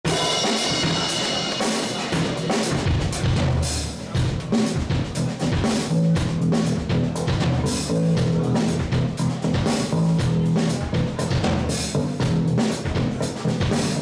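A live drum kit and guitar play an instrumental rock groove, with steady snare and bass drum hits.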